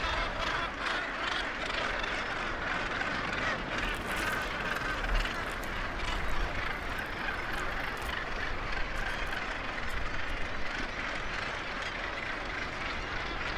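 Northern gannet colony calling: a steady din of many overlapping harsh calls.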